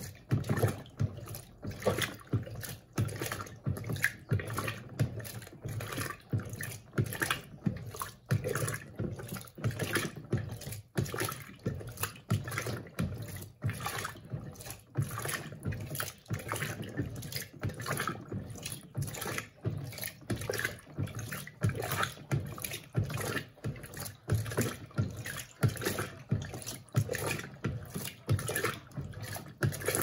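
Electrolux Turbo Compacta 7 kg (LTC07) top-loading washing machine agitating a load of bed linen in water, a steady rhythm of sloshing swishes as the agitator turns back and forth in the wash stage.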